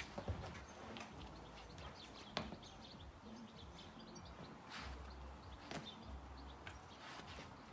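Taekwondo poomsae movements: about six sharp snaps and swishes, spaced irregularly, from the uniform and quick steps on concrete paving, with faint bird chirps behind.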